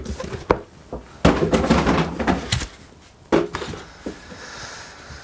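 A cardboard box is lifted off a battery pack and handled. There are a few knocks, and a stretch of scraping and rustling about a second in.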